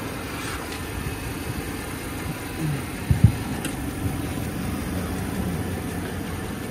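A Jeep's 5.7-litre Hemi V8 idling steadily under an open hood, with a brief thump a little past three seconds in.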